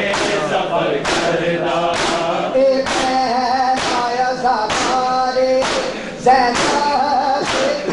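A group of men chanting a noha (Shia lament) in unison, with sharp rhythmic chest-beating slaps of matam about once a second.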